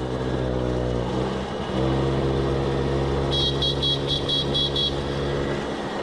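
Loud add-on horn fitted to a moped, sounded as two long steady blasts: one of about a second and a half, then after a brief gap a longer one of nearly four seconds. Partway through the second blast a rapid high-pitched beeping joins in for about a second and a half.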